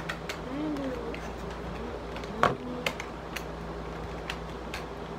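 A steady low hum with about eight scattered sharp clicks and taps, the loudest about two and a half seconds in. A short faint rising-and-falling tone comes just under a second in.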